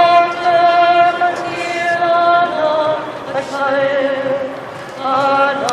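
A woman singing a national anthem in long held notes.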